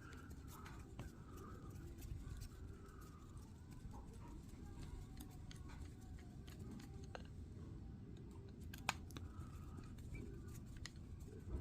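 Faint scattered clicks and light taps of small carburetor parts (gaskets, diaphragms, metal body) being handled and fitted together, over a low steady hum.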